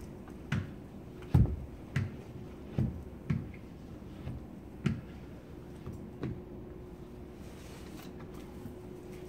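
Irregular soft knocks and taps, roughly one a second for the first six seconds and then fewer, as a squeegee is worked along the bottom edge of window film on a glass partition. A steady faint hum runs underneath.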